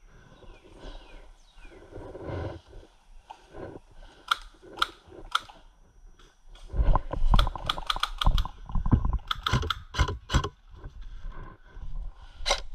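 Airsoft guns firing sharp snapping shots, at first singly and then in quick strings of three to five a few seconds in and again near the end, over rumbling movement and gear noise.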